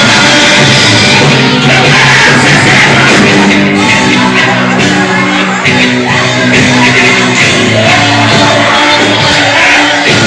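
Loud band music with voices singing and shouting.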